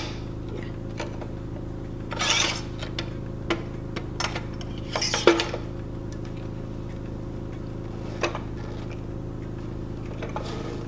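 Kitchen knives scraping and clicking as they are slid into and out of their knife block: two short scrapes a few seconds apart and a handful of single clicks, over a steady low hum.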